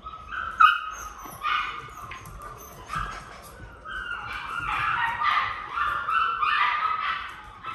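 A litter of seven-week-old poodle puppies yipping and whimpering at play, a string of short, high-pitched yelps that come thicker in the second half.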